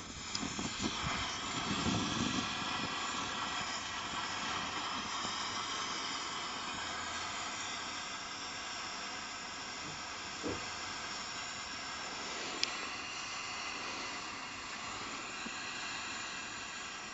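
BRS12 multi-fuel stove burner running with a steady hiss. It starts unevenly, with a fluttering rumble over the first couple of seconds as the flame flares around the burner, then settles to an even hiss under the pan.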